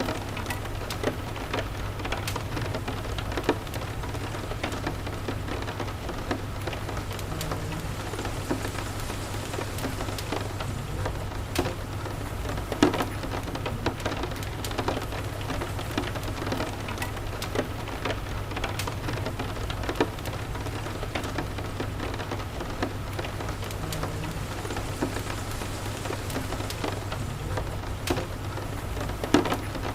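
Steady rain with a wood fire crackling over it in scattered sharp pops, a few of them louder, and a low steady rumble underneath.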